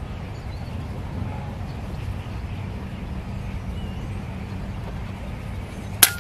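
A steady low background hum, then a single sharp crack about six seconds in: a shot from an FX pre-charged pneumatic air rifle.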